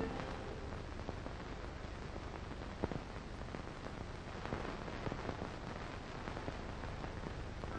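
Steady hiss and crackle of an old TV recording's soundtrack, with a few faint clicks about three seconds in.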